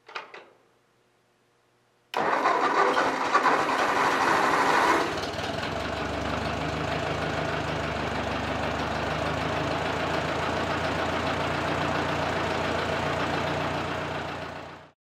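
1953 Ford Golden Jubilee tractor's four-cylinder gasoline engine starting: after a short knock and about two seconds of quiet, it fires about two seconds in and runs fast and loud for about three seconds. It then settles into a steady idle that fades out near the end.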